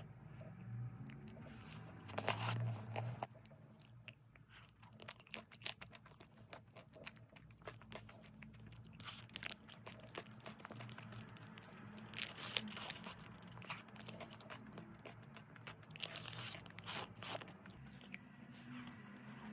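Biting into and chewing chocolate-coated ice cream bars, the coating cracking in crisp crunches with wet chewing in between. The loudest crunches come about two seconds in, again about twelve seconds in and about sixteen seconds in.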